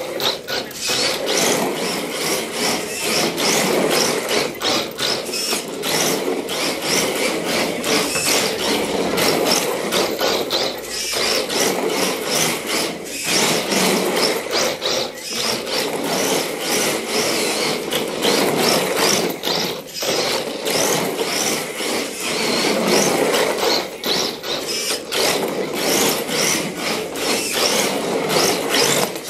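RC drift car (Exceed RC Drift King with a GTR body) driving and sliding on a hardwood floor: its motor running and its tyres scrubbing across the wood, with many short clicks and knocks throughout.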